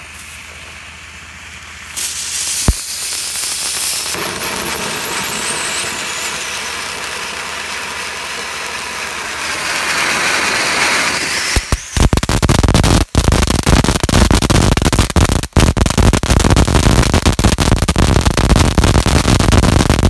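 Pig Bank Fountain firework going off: a steady spraying hiss that gets louder about two seconds in, then about twelve seconds in it breaks into loud, dense crackling that is way louder than expected.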